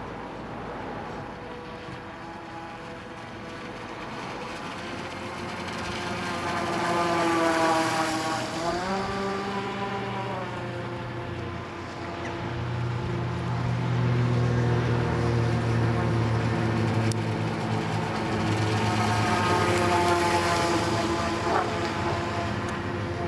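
MFA Spearfish radio-controlled speedboat with a Leopard 5692 1340kv brushless motor running flat out, its high motor whine mixed with the hiss of the hull and wake. It grows louder as the boat passes close, about seven seconds in and again through most of the second half. Its pitch bends sharply as it turns or passes, about eight seconds in and again near the end.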